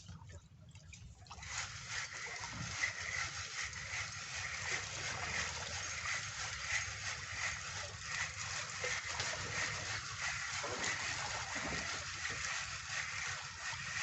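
Steady hiss of rain and splashing water, full of small crackling ticks, that comes in suddenly about a second in, over a low steady hum.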